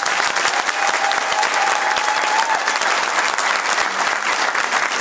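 Audience applauding: dense, steady clapping from a crowded hall.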